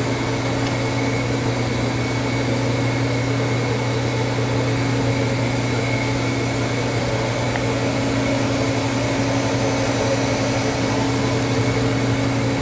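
Steady hum of powered-up machinery: a constant low drone with a faint high whine over it.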